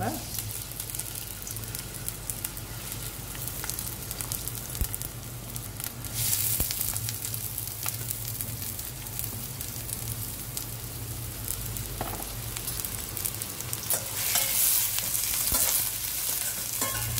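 Chopped onions sizzling as they fry in hot oil in a stainless steel pan and are stirred, with light clicks and scrapes of the spoon against the pan. The sizzle swells about six seconds in and again near the end.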